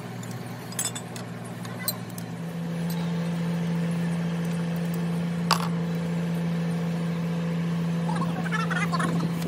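A steady machine drone that steps up in pitch and gets louder about two and a half seconds in, with a few sharp metal clinks from a wrench working the bolts on a bulldozer final drive housing.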